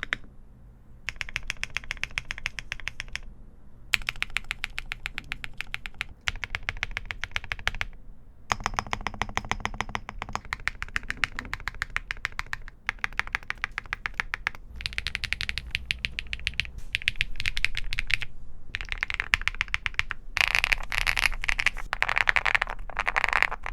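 Fast typing on a Bridge75 mechanical keyboard: rapid key clacks in several runs, with short pauses between them. The last few runs sound brighter than the earlier ones.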